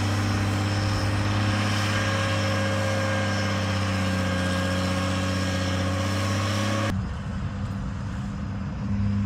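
Huber-Warco motor grader's diesel engine running steadily under load while the grader blades a dirt road. About seven seconds in the sound suddenly turns duller and quieter, and the engine hum returns near the end.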